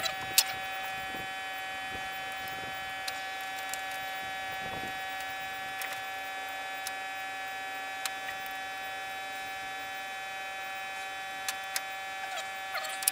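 A steady electrical buzzing hum, with a few sharp metallic clicks and taps scattered over it as injector line fittings on a Ford 6.9L IDI diesel are threaded on by hand; the sharpest click comes about half a second in, and a small cluster comes near the end.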